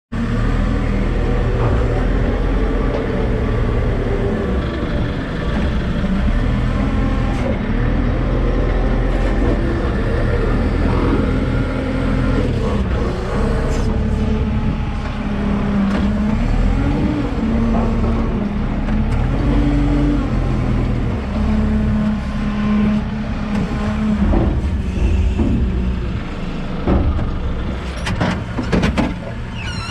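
JCB 531-70 telehandler's diesel engine running, heard from inside the cab, with the revs rising and falling as it drives. A few sharp knocks come near the end.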